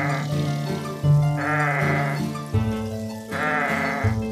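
Music with held low notes, and bleating animal calls mixed over it, a wavering call about every two seconds.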